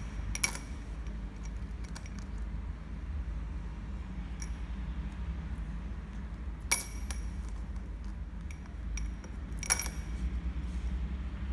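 Metal coins clinking against a small glass bowl as a sun conure picks them out with its beak and lets them drop: three sharp, ringing clinks (about half a second in, near 7 s and near 10 s) with fainter ticks between, over a steady low hum.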